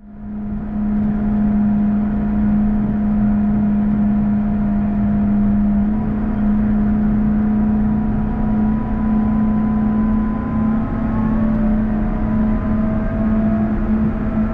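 JCB Fastrac 4220 tractor driving steadily while plowing snow, heard from inside the cab: a steady drone with a strong low hum and fainter whining tones that drift slightly up in pitch. It fades in over the first second.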